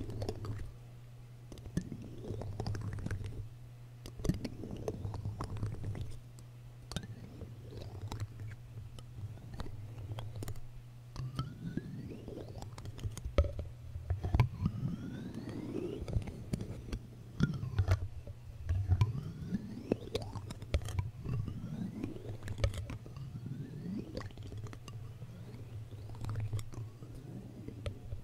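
Clear plastic spoon rubbed, scraped and tapped on a foam microphone cover close to the mic: a run of crisp clicks and scratchy sliding strokes, some sweeping up or down in pitch.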